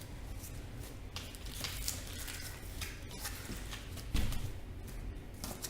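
Rustling and light knocks from packaging and parts being handled, with one louder thump about four seconds in.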